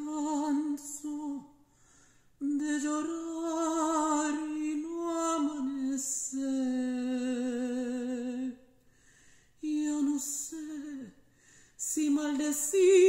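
A woman singing a Mexican ranchera unaccompanied, in long held phrases with strong vibrato and short breaks for breath between them.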